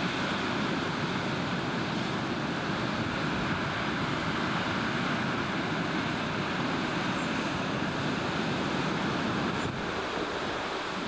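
Wind and breaking surf on a rough sea: a steady rushing noise, with wind buffeting the microphone.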